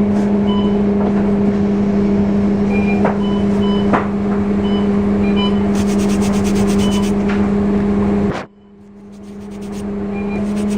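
Steady low hum of a vehicle on the move, with a few light clicks and short high beeps. About eight seconds in the sound drops sharply, then builds back up.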